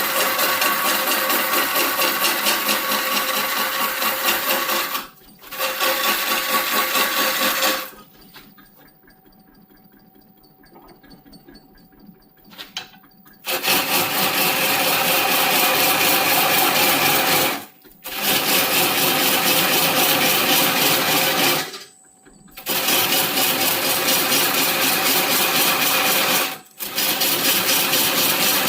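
A handheld power tool working wood, running steadily with a fast, even buzz. It stops several times, the longest pause lasting about five seconds near a third of the way in.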